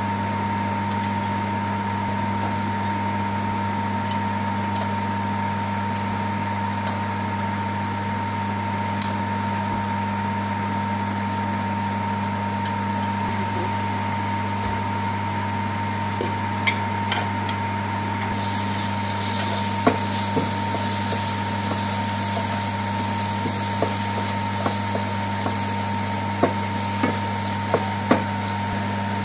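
Wooden spoon stirring onion paste and spices in a metal frying pan, with scattered light knocks of the spoon against the pan and a frying hiss that rises about two-thirds of the way in. A steady hum runs underneath.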